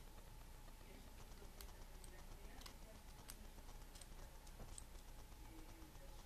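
Faint, sparse small clicks and ticks from fingers handling a small potentiometer and its metal legs, about one tick every half second to a second.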